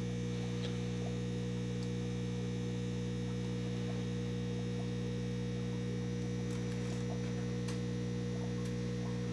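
Steady electrical hum made of several even, unchanging low tones, with a few faint small ticks now and then.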